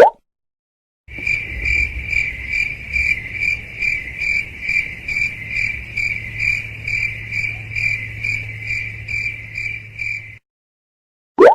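Cricket chirping sound effect, the meme cue for an awkward silence: a high chirp pulsing about three times a second, starting about a second in and stopping suddenly near the end. A short, loud rising blip sounds at the very start and another just before the end.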